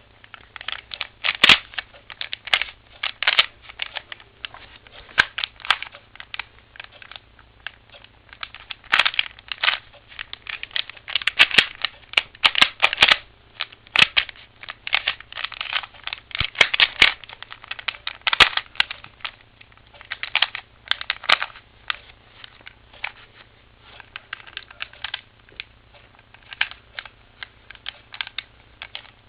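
A plastic 3x3x3 Rubik's Cube being turned by hand: quick irregular clicking and clacking of its layers, in bunches of turns with short pauses between.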